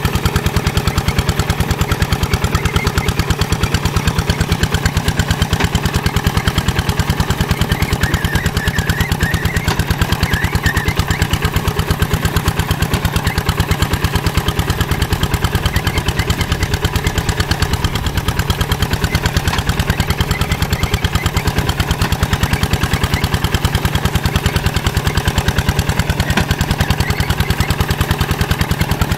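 Two-wheel hand tractor's single-cylinder diesel engine running steadily with a rapid, even chug as it drives its cage wheels through sticky paddy mud.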